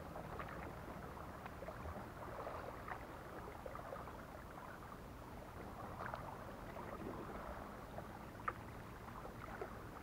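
Kayak paddling: paddle blades dipping and splashing in calm water, with a few sharper splashes here and there.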